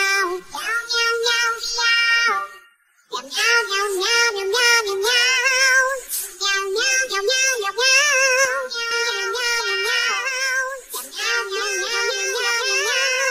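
A high, child-like voice singing a melody with wavering held notes over backing music, breaking off briefly about three seconds in.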